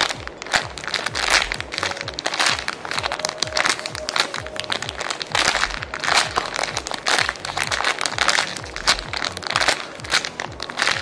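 Clear plastic packaging bag crinkling and crackling again and again as a soft foam squishy toy inside it is squeezed repeatedly, over background music.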